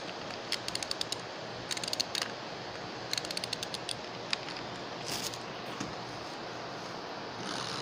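Quick runs of small plastic clicks, a handful at a time with short gaps between, from the Missing Link toy figure from Monsters vs. Aliens being worked by hand to make its action, over a steady faint hiss.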